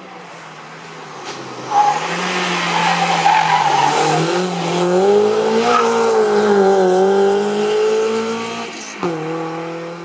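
Hill-climb race car's engine revving hard as it takes a hairpin bend and accelerates away uphill. Its pitch rises and falls through the bend, with a sudden drop about nine seconds in as it changes gear.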